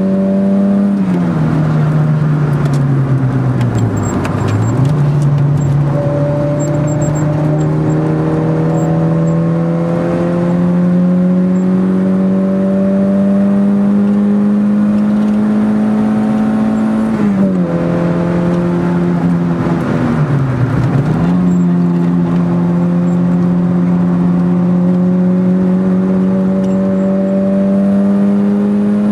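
Car engine heard from inside the cabin while lapping a circuit. Its note drops sharply about a second in, sags lower for a few seconds, then climbs slowly for over ten seconds; the same fall, dip and long slow climb comes again about 17 seconds in.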